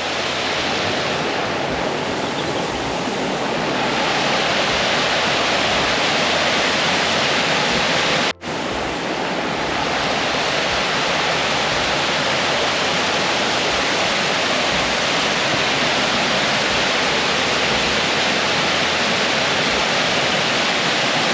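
Small waterfall, water rushing steadily; the sound cuts out for an instant about eight seconds in.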